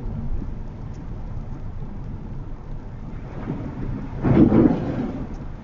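Low, steady road and tyre rumble heard inside a car's cabin while driving in rain. About four seconds in, a louder burst of rumble lasts under a second.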